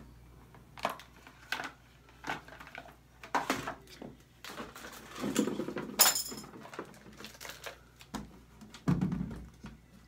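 Plastic makeup containers and small items being moved about on a shelf and in a cabinet while searching: a scattered run of knocks, clicks and dull thuds, with one sharp click about six seconds in.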